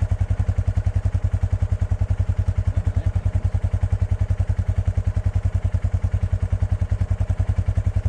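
Small utility-vehicle engine idling, a steady, even low pulse of about ten beats a second, typical of the Polaris Ranger 570's single-cylinder engine.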